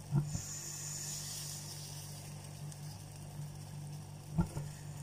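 Water with coriander seeds at a rolling boil in a stainless steel saucepan: a steady bubbling hiss over a low hum, with two brief thumps, one just after the start and one near the end.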